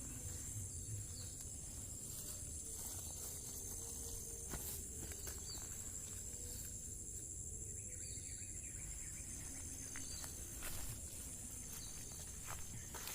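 Steady high-pitched chorus of insects, with a few faint clicks and rustles from handling.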